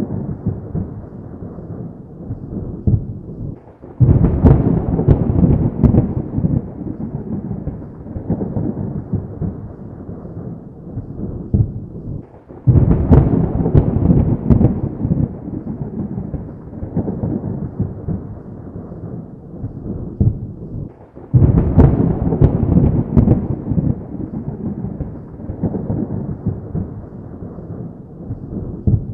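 Thunder: three sudden loud claps at even intervals, each rolling into a deep rumble that slowly dies away.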